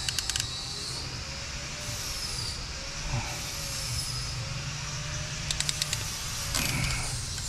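Hand wire-crimping tool clicking in two quick runs of sharp clicks, one right at the start and one about five and a half seconds in, as it closes on connectors in a wiring harness. Behind it runs steady shop noise: a hiss and a low hum with faint wavering high whines.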